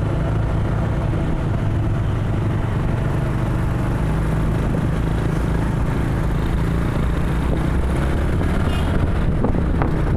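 Heavy road vehicle's engine running steadily, a deep, even hum with no change in pace.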